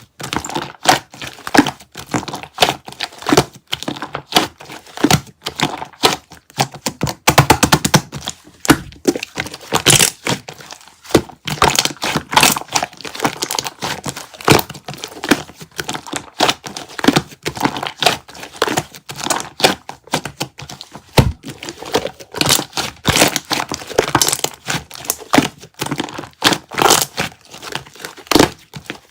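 Hands squishing, folding and pressing a red clear slime, with dense, irregular sticky crackling and popping clicks as air pockets burst.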